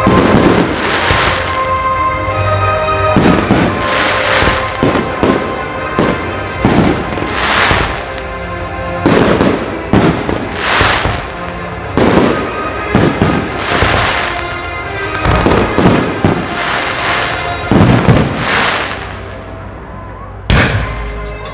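Aerial firework shells bursting in a rapid series of sharp bangs, about one a second, with crackle, over music playing. The bangs ease off briefly near the end, then one more sharp bang follows.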